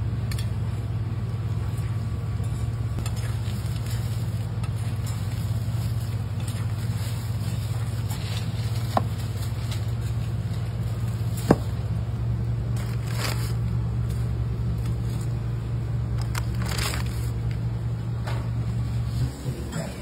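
Cleaver chopping through a crispy fried egg crepe roll on a plastic cutting board, giving several crisp crunches in the second half, with two sharp clicks before them. A steady low kitchen hum runs underneath and cuts off near the end.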